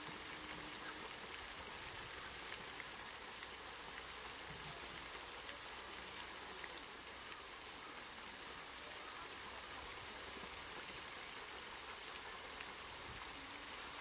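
Steady outdoor noise with faint scattered ticks, like light rain falling on open water.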